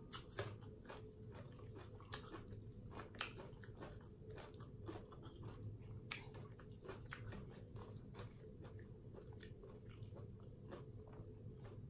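Close-up chewing and biting of a mouthful of Thai green papaya salad, with many short crisp crunches and wet mouth clicks scattered irregularly throughout.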